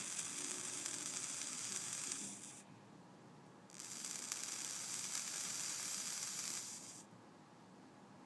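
Kanthal coil on an e-liquid-soaked stainless mesh wick sizzling as the Provari fires it, the juice boiling off into vapor. It fires twice: about two and a half seconds, a pause of about a second, then about three seconds.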